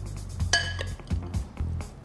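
A metal spoon clinking against the dishes while noodles are spooned into a baking dish: one bright ringing clink about half a second in, then a few lighter taps. Background music with a steady low bass runs underneath.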